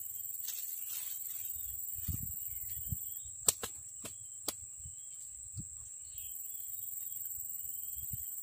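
Steady, high-pitched drone of forest insects, with faint chirps over it. A few sharp clicks come from about three and a half to four and a half seconds in.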